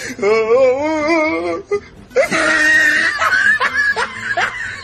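A woman laughing loudly in one long, wavering stretch, then a raised, excited voice shouting from about two seconds in.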